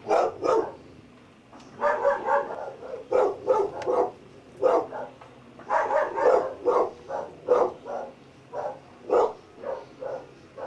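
An animal calling in short, loud, repeated bursts, about two a second with brief pauses between runs.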